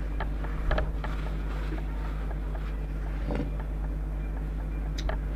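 A few scattered light clicks and knocks from handling small air rifle parts, over a steady low hum.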